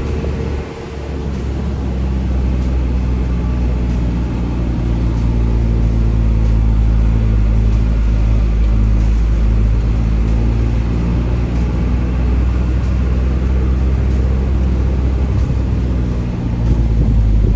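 A motor vehicle's engine running with a steady low rumble as it drives, the level dipping briefly about a second in and then holding steady.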